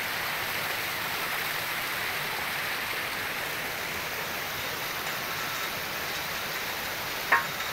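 Steady rush of flowing water from a stream or river, with a brief chirp near the end.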